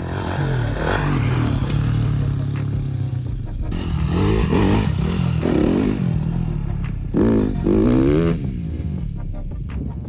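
A motor vehicle's engine running and being revved, its pitch rising and falling several times in the second half, loudest about seven to eight seconds in.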